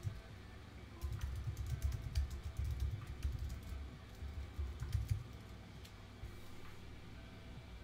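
A quick, uneven run of clicks and taps, like typing, starting about a second in and stopping about four seconds later. Each tap carries a dull thump through the desk that the microphone rests on, over a faint steady hum.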